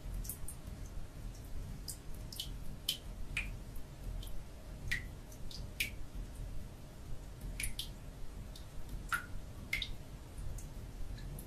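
Water dripping: single drops falling at an irregular pace, roughly one or two a second, each a short plinking drip, over a low steady rumble.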